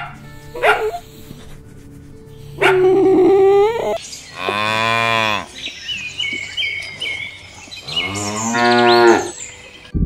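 Cattle mooing: two long moos that rise and fall in pitch, the first about four seconds in and the second about eight seconds in. They follow a few short dog barks or yelps at the start.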